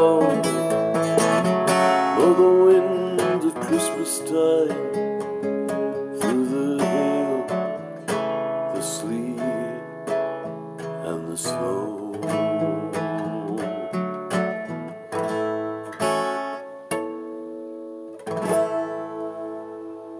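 Acoustic guitar strumming the closing chords of a folk song. The chords ring out and grow steadily quieter toward the end.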